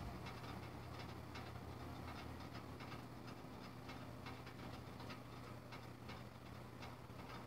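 Faint, irregular ticking and tapping, several light clicks a second, over a steady low hum.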